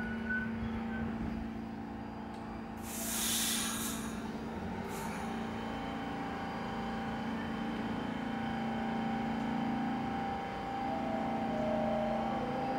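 R46 subway train at the platform: a loud hiss of air brakes releasing about three seconds in, over a steady hum from the train. From about eight seconds in it gets louder as the train starts pulling out, with a steady motor whine near the end.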